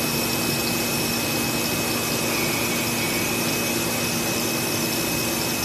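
CNC cutting machine's milling spindle routing a sheet: a steady whine with fixed high and low tones over an even, vacuum-like rush.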